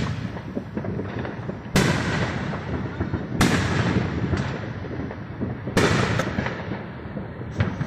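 Distant fireworks going off: three louder bangs, about two seconds in, about halfway through and near six seconds, each trailing off. Between them runs a continuous scatter of fainter pops and crackles.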